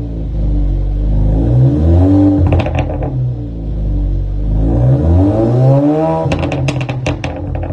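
Stage 1 tuned Alfa Romeo Giulia Veloce engine and exhaust, revs climbing twice. Each time the revs drop off, there is a burst of exhaust pops and crackles, the second one longer and louder. These are the pops and bangs of the tune.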